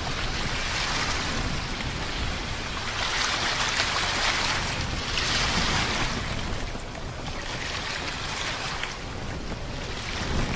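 Ocean waves surging and breaking around a camera at the waterline, a steady rush of water that swells louder twice, about three and five seconds in.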